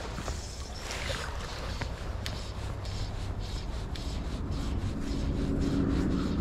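Handling noise while a fly rod and line are worked: rubbing of clothing and a low rumble, with a row of faint, regular ticks. A low steady hum builds up over the last couple of seconds.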